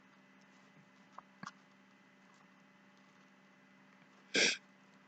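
Faint steady electrical hum. Two faint clicks come about a second in, and one short, louder noise follows near the end.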